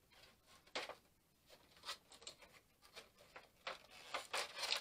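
Cardboard Funko Pop box being opened by hand: scattered rustles and scrapes of the flaps and packaging, with a sharper scrape a little under a second in and a busier run of rustling near the end.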